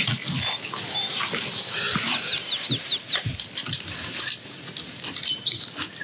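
Handling noise as the wooden door of a bird hide is opened and someone moves in: knocks, clicks and rustling. Small birds call over it, with a quick run of about six short, high chirps about two seconds in.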